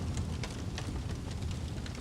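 Wood fire crackling: sharp pops and crackles several times a second over a steady low rumble.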